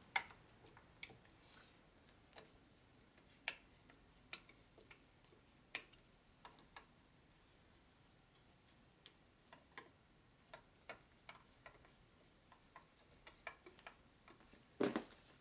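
Screwdriver tightening the cover screws on a Harley WLA transmission case: faint, scattered light clicks and ticks of metal on metal, a few at first and coming closer together in the second half.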